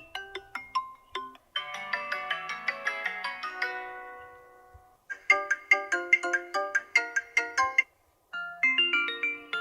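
Stock ringtones of a Xiaomi Mi 11 Ultra phone played one after another as short electronic melodies. One ends about a second and a half in, a dense run of notes then fades out, and two more tunes follow, each cut off with a brief silence before the next.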